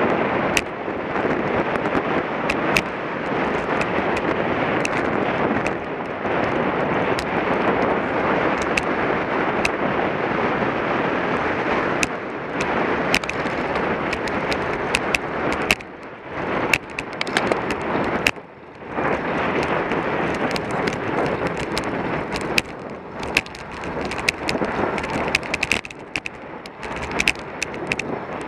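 Wind buffeting the microphone of a bike-mounted camera on a road bicycle racing at speed: a dense steady rush broken by frequent sharp clicks and knocks. It drops away briefly twice, about halfway through.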